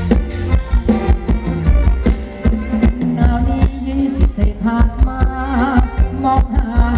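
Thai ramwong folk dance music from a live band, with a steady drum beat, heavy bass and a melody line over it.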